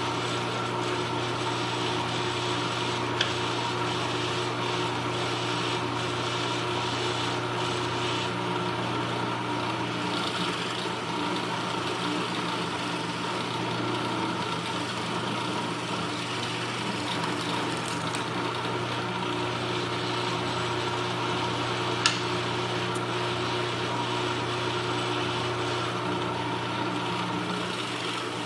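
Drill press motor running steadily with a constant hum while the bit is fed down into a block of wood. A sharp click comes about three seconds in, and a louder one about 22 seconds in.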